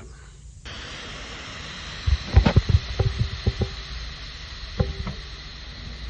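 Air hissing steadily out of a bicycle tyre valve as its core is held down with a small screwdriver to deflate the tyre. A run of low knocks and clicks from handling comes about two to three and a half seconds in, and once more near the end.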